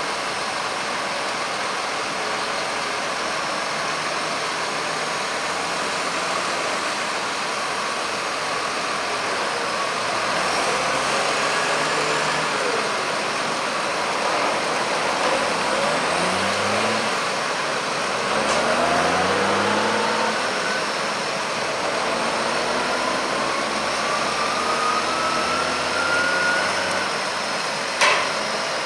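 John Deere 6250R tractor's six-cylinder diesel running under load as it tips a trailer of maize silage. The engine's pitch rises in several sweeps through the middle, and there is one sharp knock near the end.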